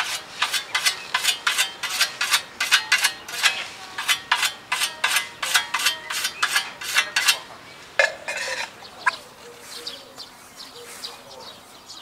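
Steel scythe blade being whetted with a whetstone: quick scraping strokes, about three or four a second, that stop about seven seconds in.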